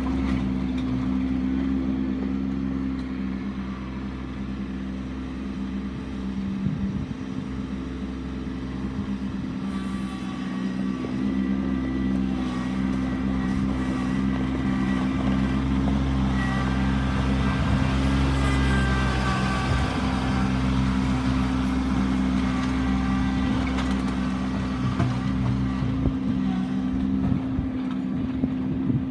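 Kubota B2650 compact tractor's three-cylinder diesel engine running steadily under work while moving snow, its level dipping a few seconds in and then rising again.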